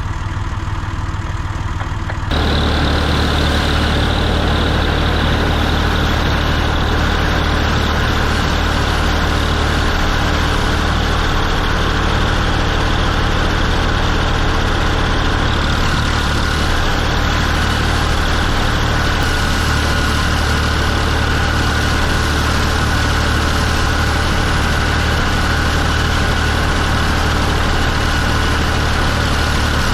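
Tractor diesel engine running steadily, stepping up to a louder, fuller sound about two seconds in and then holding steady.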